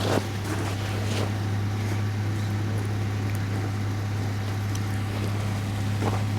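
Vehicle engine running steadily at idle as a low, even hum, with a few light knocks and clatters over it.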